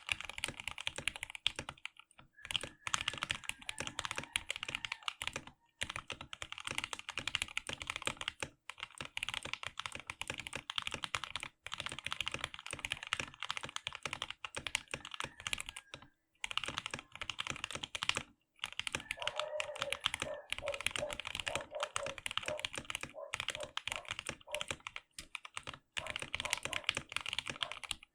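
Continuous typing on an Ajazz AK33 mechanical keyboard with lubed Gateron Milky Yellow linear switches, PBT keycaps and foam in the case: a quick, steady run of key strokes broken by a handful of brief pauses.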